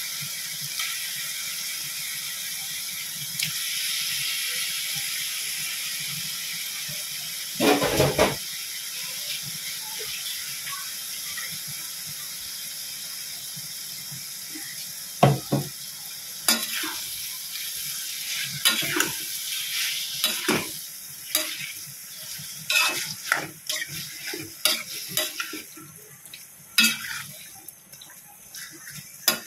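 Liver pieces sizzling in hot oil and masala in a pan, the sizzle slowly easing off. From about halfway on, a spoon repeatedly knocks and scrapes against the pan as the liver is stirred.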